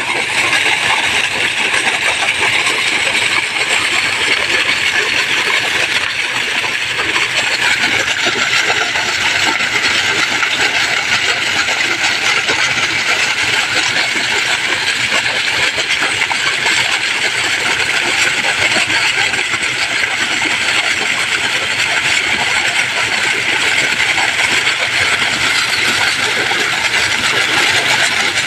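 Heavy stream of pumped water gushing from a pipe outlet and splashing onto wet ground, a loud, steady rush.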